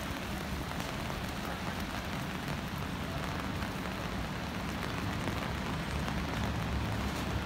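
Steady rain falling on wet pavement and umbrellas, a fine even patter, with a low rumble of street traffic underneath that grows slightly in the second half.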